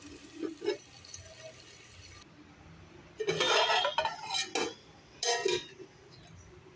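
Spoon stirring in a cooking pan, scraping against the pan with several clinks, the loudest scrapes and knocks about three to five and a half seconds in.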